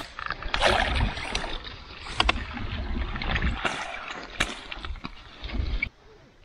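Water splashing and sloshing in irregular strokes as a fish is landed in a landing net, stopping suddenly about six seconds in.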